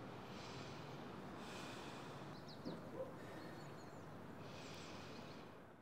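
Quiet outdoor background noise with three soft breaths or sighs from a person. Two small knocks and a few brief high chirps come near the middle, and the sound fades out at the very end.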